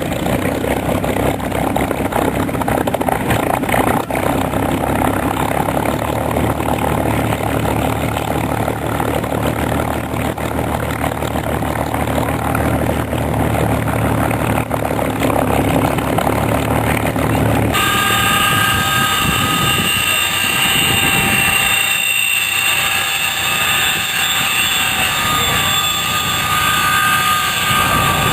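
Aircraft engine noise, steady and fairly loud. About two-thirds of the way through it cuts abruptly to a different aircraft sound that carries several steady high whining tones over the noise.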